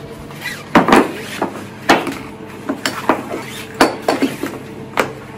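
A carpet-cleaning machine's high-pressure hose being uncoiled and laid out by hand: a run of about ten irregular sharp knocks and clinks, the loudest about a second in.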